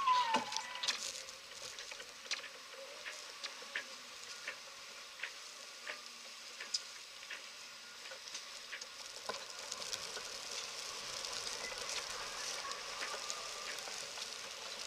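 Steady hiss of wind and sea spray around a sailing yacht's cockpit in rough water, with light ticks repeating about every three-quarters of a second through the first half.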